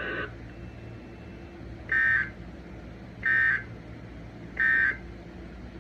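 EAS end-of-message data tones from the alert encoder/decoder: three short bursts of data tones, about 1.3 s apart. They are the repeated end-of-message code that closes the Tornado Warning alert.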